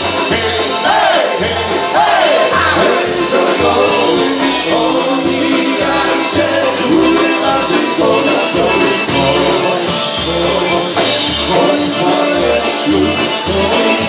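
Live polka band playing a mostly instrumental passage: accordion, trumpet and saxophone carrying the tune over a bouncing bass beat of about two notes a second.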